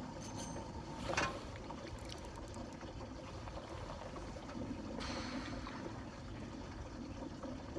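Water lapping against a fishing boat, a steady low rushing, with a sharp knock about a second in.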